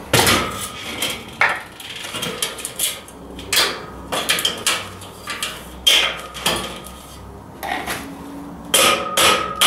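Mallet knocking a steel beam into the slotted uprights of a boltless metal shelving unit: a dozen or so sharp knocks at uneven intervals, each with a short metallic ring. Three come in quick succession near the end.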